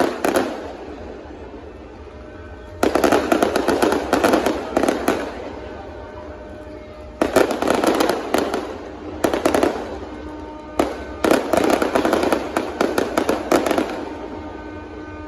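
Aerial fireworks going off in several dense volleys of rapid bangs and crackle, with short lulls between them. A steady low ship's horn sounds beneath and comes through most clearly near the end as the bursts die down: tugboats sounding their horns in salute.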